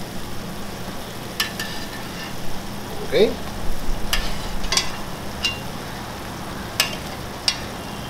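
Tomato meat sauce sizzling steadily in a skillet, with a metal slotted spoon clicking sharply against the pans about five times as gnocchi are lifted in.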